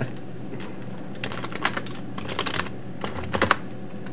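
Typing on a computer keyboard: several short runs of keystrokes with pauses between them, entering a username and password.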